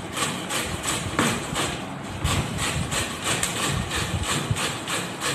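Peeled mango being shredded on a metal box grater: a steady run of rhythmic scraping strokes, about three to four a second.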